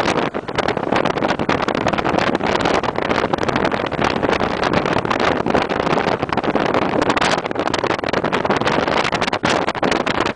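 Wind buffeting the microphone loudly and continuously over the noise of a moving vehicle.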